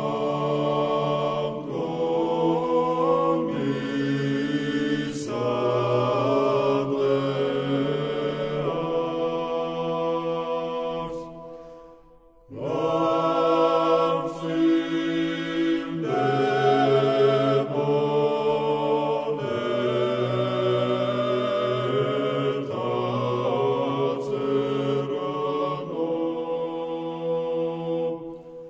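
Georgian Orthodox church chant: an unaccompanied choir singing sustained three-part harmony over a low bass line, in two long phrases with a short break about twelve seconds in.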